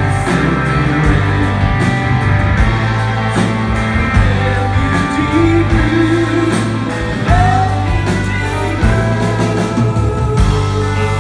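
Live rock band playing with several electric guitars over drums, with a steady cymbal beat of about three strikes a second.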